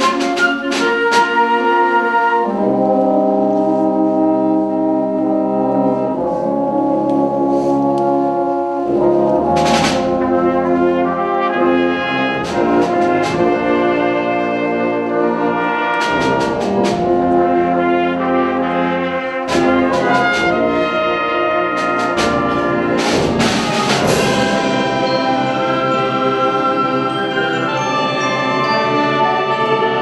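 A symphonic wind band playing a concert piece, brass to the fore: sustained full chords that shift every second or two, punctuated by a few sharp accented strikes.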